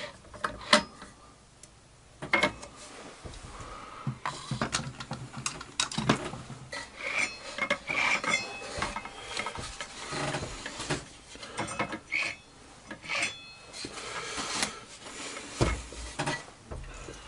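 Metal clinks, taps and rubbing as a circular saw blade is tightened on its arbor with a hand tool and turned by hand, with a few short metallic rings from the steel blade.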